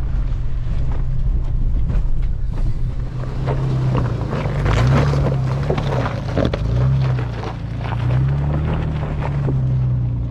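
Toyota FJ Cruiser's V6 engine running as it drives a dirt mountain trail, its pitch rising and falling a few times with the revs. From a few seconds in, a dense crunching and rattling joins it.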